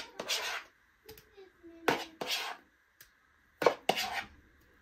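Metal spoon scraping and knocking against a plastic mixing bowl while the last of a cream filling is emptied out. Three bouts, each a sharp knock followed by a short scrape, about two seconds apart.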